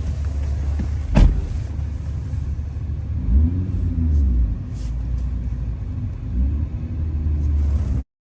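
2009 Honda Odyssey's V6 engine running with a deep exhaust rumble, loud because of a hole in the muffler pipe, revved up and back down twice; it runs smoothly now that its misfire is cured. A sharp knock sounds about a second in, and the sound drops out briefly near the end.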